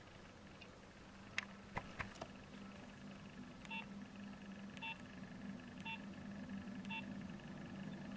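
Nokia 6220 mobile phone: a few sharp clicks of its keys, then four short keypad beeps about a second apart as keys are pressed, over a faint low hum.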